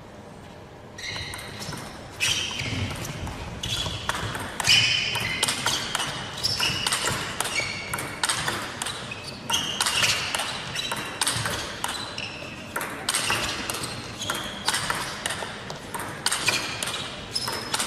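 Table tennis rally: the ball pinging sharply off the players' bats and the table, hit after hit in an uneven rhythm, starting about a second in and going on through a long exchange.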